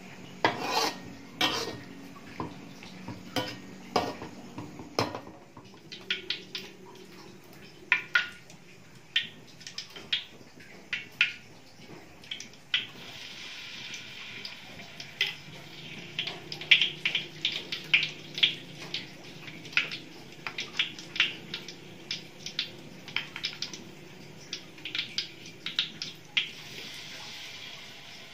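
A metal ladle scraping and knocking against a metal wok as stir-fried capcay is scooped out, followed by a spoon clinking on the wok while battered tempeh fries in hot oil. The oil's sizzle comes in as a steady hiss about halfway through, under the repeated clinks.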